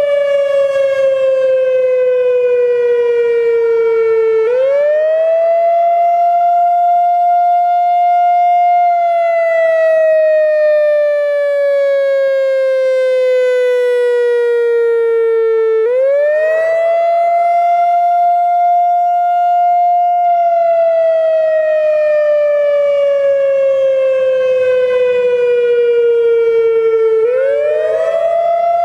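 Whelen WPS-3000-series electronic tornado siren sounding a loud wail in a test: the pitch rises quickly, holds for a few seconds, then falls slowly, repeating about every eleven seconds.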